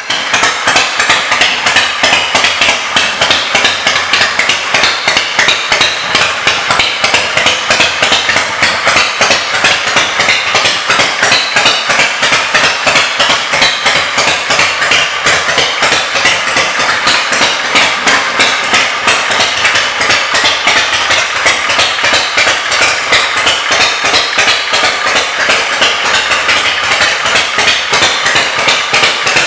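Custom chopper's S&S V-twin engine idling, a steady rapid pulsing beat.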